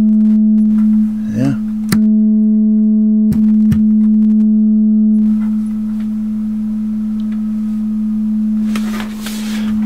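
Steady low test tone of around 200 Hz from a signal generator, played through a Buttkicker BKA1000-4A amplifier as its high-cutoff filter knob is turned. About five seconds in the tone drops in level and loses its overtones as the cutoff filter takes effect. A few sharp clicks sound in the first four seconds.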